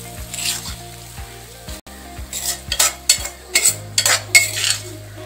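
Metal spoon scraping and clinking against a steel kadai as fried onion masala is scooped out of it, in a quick run of strokes in the second half.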